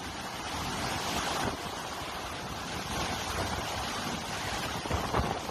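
Hurricane wind with driving rain blowing steadily, a dense rushing noise that swells slightly now and then, buffeting the phone's microphone.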